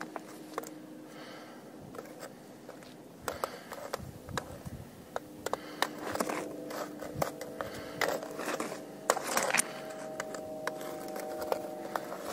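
Pinpointer probe prodding and scraping among beach pebbles and gravel, with many sharp clicks of stone against the probe and stone on stone.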